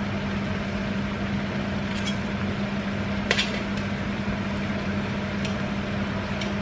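Metal tongs clicking against a stainless steel pan about four times while chicken simmers in its juices, over a steady hum.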